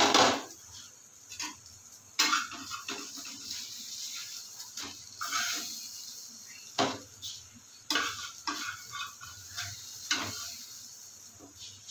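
A metal spatula scraping and knocking against a non-stick frying pan as a cheese omelette is lifted out onto a plate, over a faint sizzle of hot oil. A loud clatter comes right at the start as the ceramic plate is set down on the steel stovetop, and several sharp knocks and scrapes follow.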